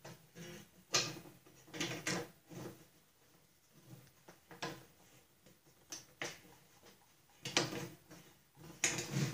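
Irregular metallic clicks and clinks of hands working a cotter pin and clevis pin loose in the steel pedal linkage of a Snapper mower deck. Some of the knocks ring briefly.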